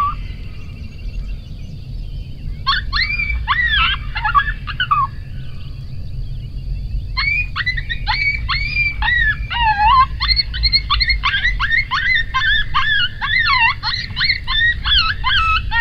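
Coyote yipping and howling: a burst of quick, wavering high yips a few seconds in, then after a short pause a continuous run of rapid yips and yodelling howls. A low wind rumble lies under them.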